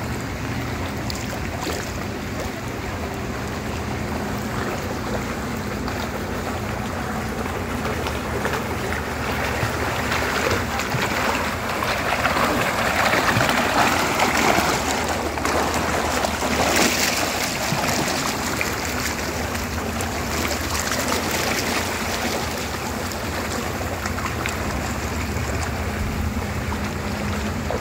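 Swimming-pool water splashing and churning close to the microphone, a steady rushing that swells loudest about halfway through.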